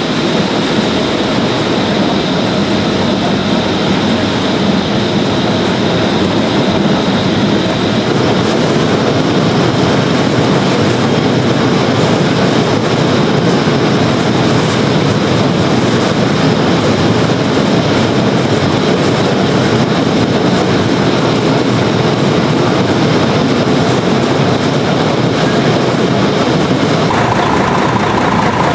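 Belt conveyor running steadily, dropping cut seed potato pieces onto a pile in a truck box. Near the end a steady tone joins in.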